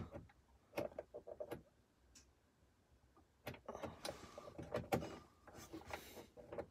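Small clicks of the push buttons on a 1981 Ford Mustang's console quartz clock being pressed by fingertip to step through date, time and E.T.: a few clicks, a pause, then a second group of clicks with some rustle.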